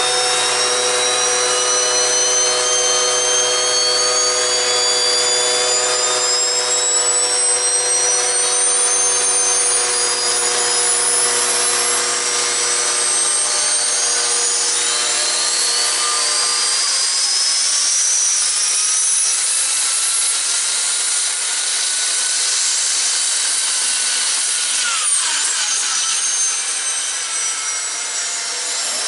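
The turbocharger on a homemade wood-fired turbo stove spins up with a high whine that climbs steadily in pitch. Under it runs a steady lower drone that stops about two-thirds of the way through, while the turbo whine carries on.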